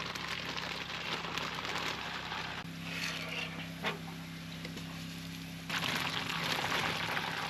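Steady sizzling and crackling from campfire cooking, with small pops through it. A faint steady low hum runs underneath.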